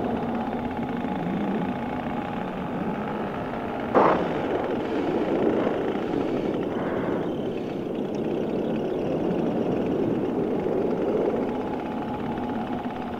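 Paramotor engine running steadily in flight with air rushing past, its carburettor freshly re-tuned. A single sharp knock about four seconds in.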